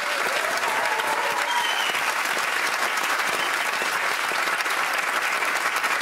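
Studio audience applauding, a dense steady clapping, with a few faint cheers in the first two seconds.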